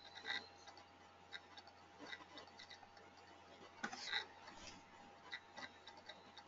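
Faint, irregular clicks and ticks over a faint steady hum, with a slightly louder cluster of clicks a little past halfway.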